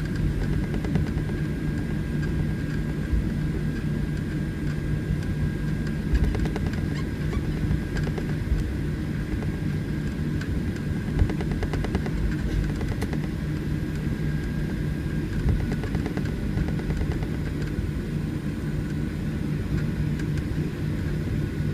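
Cabin noise of a Boeing 737-800 taxiing with its CFM56 engines at idle: a steady low hum under a thin high whine, with a few small bumps and knocks from the taxiway.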